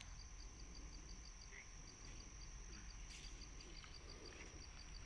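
Faint, even chirping of a cricket, about six short high chirps a second with brief pauses, over a steady high insect drone, with a soft rustle about three seconds in.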